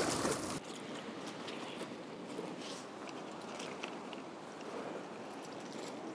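Steady rushing of river rapids, with scattered faint clicks and crunches. A deeper rumble underneath cuts off abruptly about half a second in.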